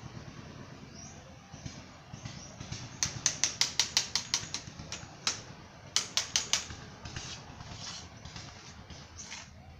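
Metal template of a rotating cement-pot mould scraping over wet cement as it is worked around the pot. In the middle come sharp taps, a quick run of about six a second, then one alone and four more.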